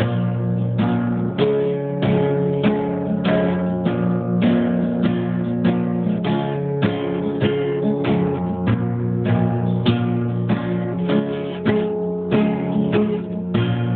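Guitar music: an acoustic guitar strumming chords in a steady rhythm, about two strums a second.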